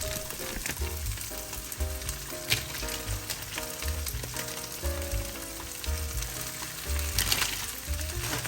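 Oyster mushrooms, peppers and onion sizzling in a frying pan as provolone cheese melts in, with a couple of brief sharp clicks. Background music with a steady bass beat plays alongside.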